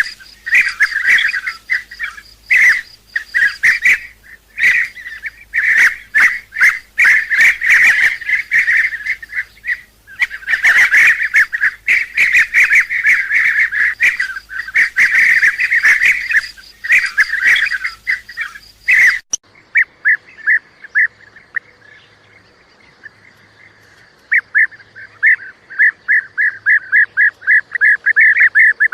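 Bee-eaters calling: a dense chorus of repeated short rolling calls, then after an abrupt cut about two-thirds of the way through, a few scattered calls, a pause, and a quick run of short calls near the end. A lure recording used to call the birds in.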